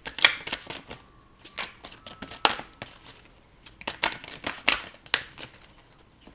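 A deck of divination cards shuffled by hand: an irregular run of short clicks and slaps as the cards are slid and dropped between the hands.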